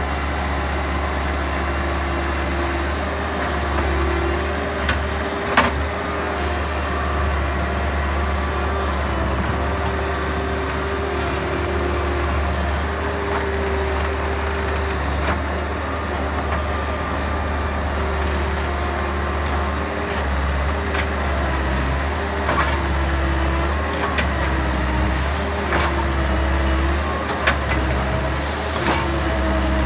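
Bobcat skid steer's diesel engine running under load, its pitch rising and falling as the hydraulics work the front grapple against a tree. A few sharp cracks and snaps come through, most of them near the end.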